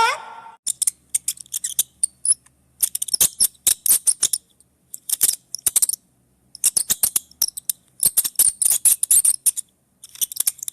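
A small wild animal making rapid, very high-pitched squeaks and clicks in bursts of about a second, with short pauses between the bursts.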